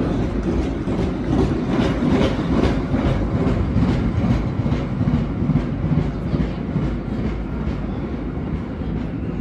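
Vintage R1/9 subway train departing: a steady rumble of wheels on rail, with repeated clacks as the wheels cross rail joints, easing slightly toward the end.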